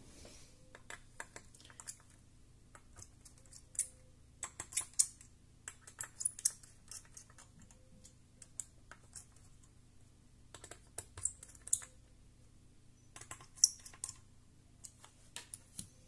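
Small screwdriver tightening screws on the back of an Asus GTX 750 Ti graphics card: irregular light clicks and ticks of the tool and the card being handled.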